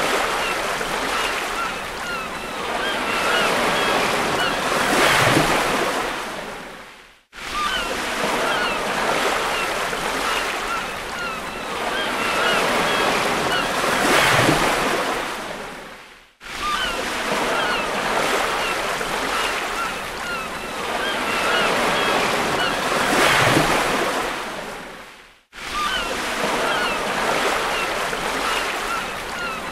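Looped beach ambience of surf: waves wash in and build to a breaking crest about every nine seconds, with short high chirps over the hiss. The same stretch of recording fades out and restarts abruptly three times.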